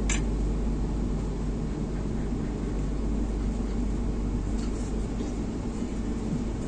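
Steady low running noise inside a moving Vande Bharat train coach, with one short click near the start.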